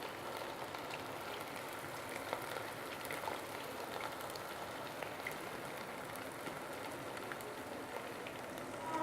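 Marinated chicken strips deep-frying in hot vegetable oil: a steady sizzle with scattered small pops and crackles.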